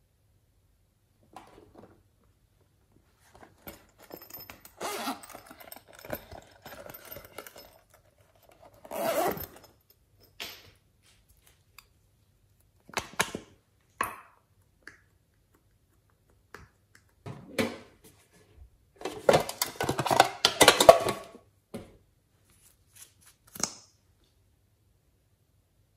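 Close handling of slime-making supplies: a liquid lipstick being uncapped and small tools and containers knocking against a glass dish. It comes as scattered short clicks and taps, with a denser, louder run of them late on.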